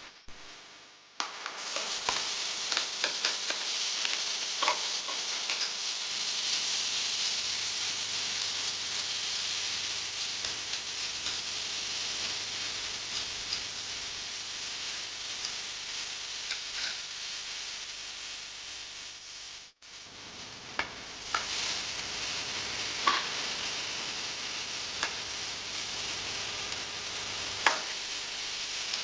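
Food sizzling in hot oil in a pan, a steady hiss with scattered clicks and taps of a utensil against the pan as it is stirred. The sizzle cuts out for an instant about two-thirds of the way through, then carries on.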